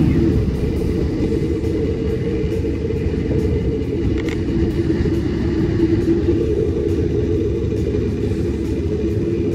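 Steady low rumble and rush of a zipline ride: the trolley running down the cable, with wind on the microphone.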